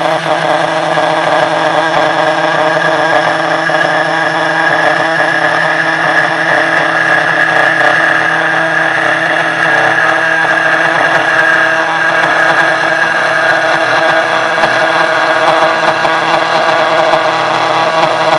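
Spindle of a 1610 Pro desktop CNC router cutting with a 3 mm end mill on a shallow 0.4 mm pass: a loud, steady whine over a grinding rasp that starts suddenly and stops suddenly near the end.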